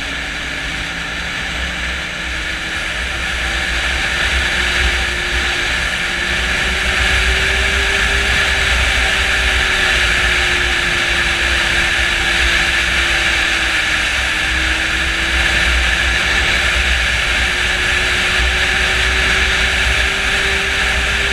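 Snowmobile engine running along a trail at steady speed under a constant rush of noise. Its pitch drifts slowly up and down with the throttle, climbing over the first few seconds and dipping briefly past the middle, over a low rumble.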